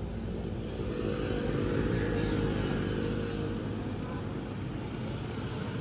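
An engine running steadily with a low hum, slightly louder about two seconds in.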